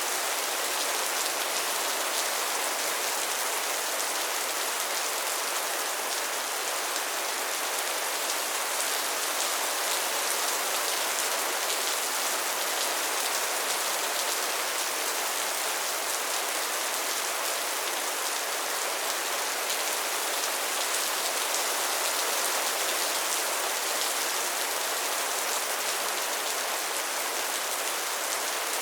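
Steady rain falling, a dense even hiss with fine patter of drops on a surface.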